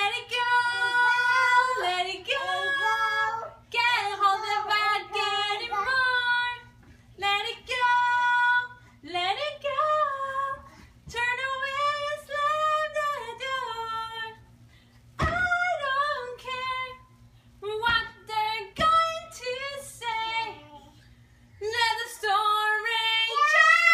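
A toddler singing in a high voice, in wordless phrases with long held, wavering notes and short pauses between them. Three brief thumps come in the second half.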